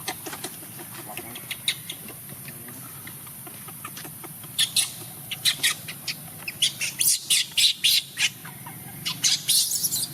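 Rapid clusters of short, high-pitched animal chirps, louder and more frequent in the second half.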